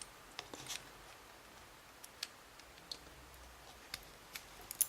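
Faint, scattered light metallic clicks and taps of small tools working a Yale dimple lock cylinder, irregularly spaced and a little busier near the end.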